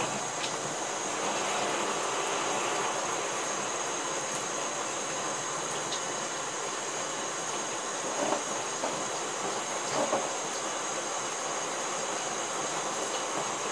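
Shower spray running steadily, water falling onto soaked denim jeans and into a bathtub, with a couple of brief louder splashes in the second half.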